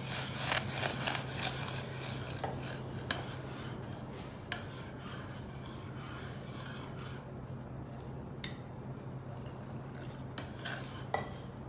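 Metal spoon stirring and scraping against a stainless steel saucepan as cornflour slurry is stirred into boiling milk to thicken it. Quick rasping strokes in the first few seconds, then quieter stirring with a few light clinks over a steady low hum.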